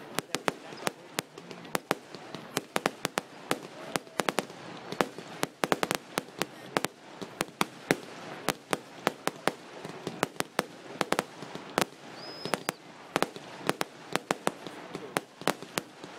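Fireworks display: a rapid, irregular string of sharp bangs and cracks, several a second, over a crowd murmuring. A brief high whistle sounds about twelve seconds in.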